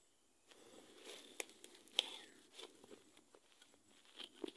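Leaves and twigs rustling and snapping as someone pushes through dense forest undergrowth: soft brushing with irregular sharp cracks, the loudest about two seconds in and a few more near the end.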